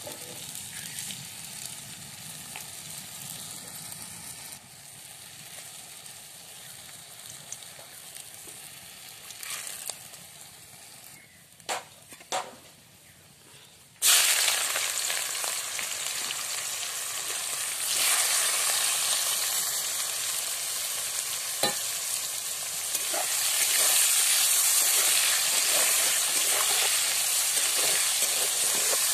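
Hot oil in a karahi crackling softly, with two sharp knocks a little before halfway; then ingredients go into the oil and a sudden loud sizzle starts and keeps going as spices, onions and potatoes are fried and stirred with a metal spatula.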